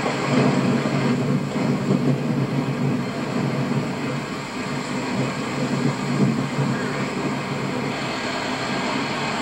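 Steady low rumble of a running motor, with no clear start, stop or change in pitch.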